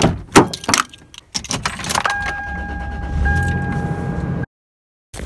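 Keys jangling and clicking in a car door lock. Then a car engine starts and runs at a fast idle, with a steady high tone over it, until the sound cuts off suddenly.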